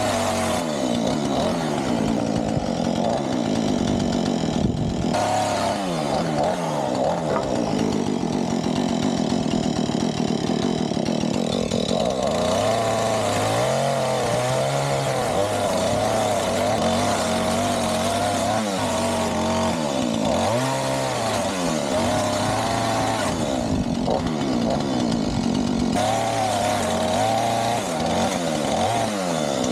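Gasoline chainsaw running and cutting wood, its engine pitch rising and falling over and over, dropping lower for a while around the middle before climbing again.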